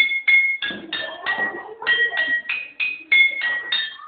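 Glass bottles struck to play a tune: a quick run of bright, ringing notes, about three a second, the pitch stepping up and down from note to note.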